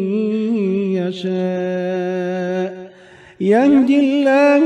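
Melodic Quran recitation (tajweed): a single voice holding a long drawn-out note, breaking off briefly about three seconds in, then taking up a new held phrase at a higher pitch.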